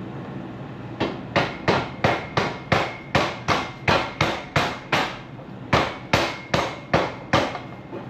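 A hammer striking metal in a fast, even run of about seventeen blows, nearly three a second, with a short pause about halfway through: the Model T's exhaust pipe being hammered into place.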